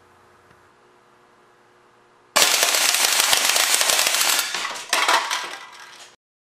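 A .177 steel-BB air cannon firing full auto on 450 psi compressed air: a rapid, continuous rattle of shots starting about two seconds in and lasting about two seconds, trailing off, then a second short burst near five seconds before it cuts off.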